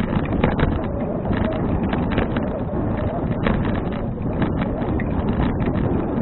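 Wind buffeting the action camera's microphone on a moving bicycle, a steady rough rumble with frequent small clicks and rattles.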